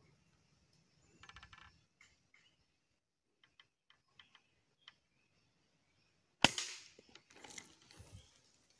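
A single sharp shot from a Sharp Innova bullpup air rifle a little over six seconds in, followed by about a second and a half of quieter scuffling noise.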